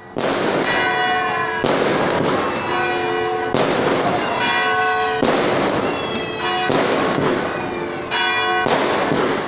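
Fireworks going off in repeated loud bangs about every one and a half to two seconds, mixed with church bells ringing.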